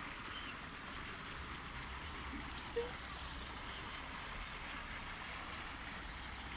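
Steady hiss of running water, with one short blip about three seconds in.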